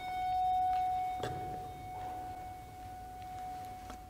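A bell rung once, sounding a single clear tone that fades slowly over about four seconds, marking a name read in remembrance. A soft knock about a second in.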